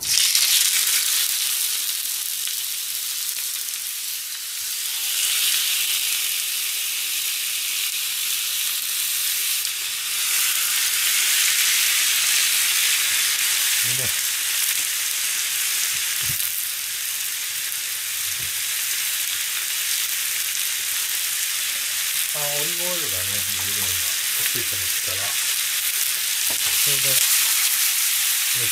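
Bone-in chicken thighs sizzling in hot garlic oil in a frying pan, starting suddenly as the meat goes in and frying steadily after.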